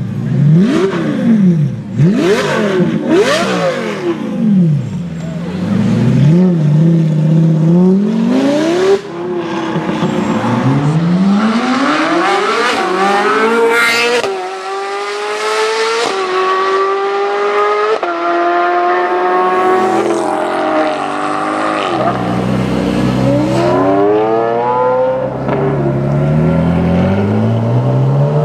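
A supercar engine revved hard several times, the pitch shooting up and dropping back, then accelerating away through the gears, the pitch climbing and stepping down at each upshift, followed by another run up through the gears near the end.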